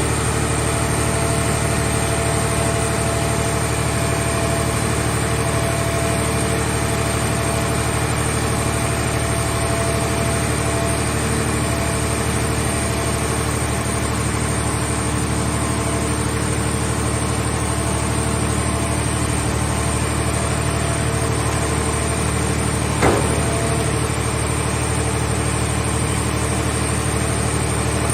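Hydraulic car-body baler's power unit running steadily at a constant hum, with one sharp click about 23 seconds in.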